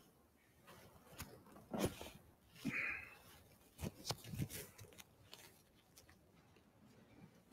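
Faint scattered knocks, clicks and rustling of people moving about, most of them in the first five seconds, with a brief hiss about three seconds in.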